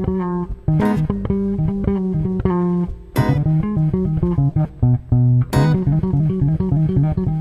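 Bass guitar playing a solo spot: a continuous run of plucked low notes, with a sharp accent hit about every two and a half seconds.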